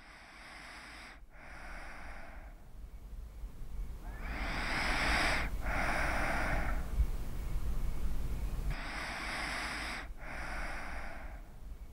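Slow, deep human breathing: three long breaths about four seconds apart, each in two halves with a brief break between, over a low steady rumble.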